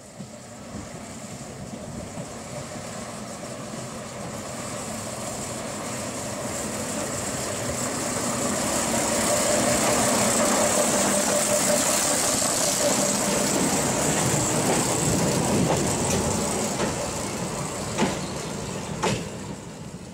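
Köf II diesel shunting locomotive running as it passes at low speed: its engine grows louder as it approaches, peaks as it goes by and fades as it moves away, with two sharp clanks near the end.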